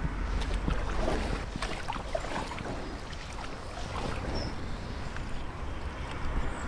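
Two kayak paddles dipping and splashing in canal water beside an inflatable drop-stitch tandem kayak (Riber 420), in irregular strokes with drips. A steady low wind rumble sits on the microphone.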